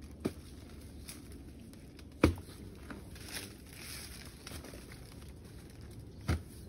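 Long-handled digging tool struck down into soil: three dull thuds, the loudest about two seconds in, with a few softer knocks between.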